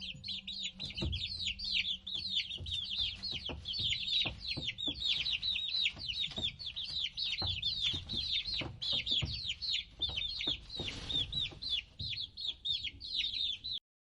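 A group of chicks peeping: many short, high calls that fall in pitch, overlapping in a continuous stream, with soft knocks underneath.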